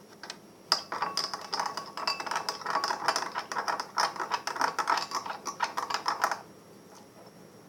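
A spoon rapidly clicking and scraping against a plate for about six seconds, working a sticky flour-and-water slime mixture, then stopping near the end.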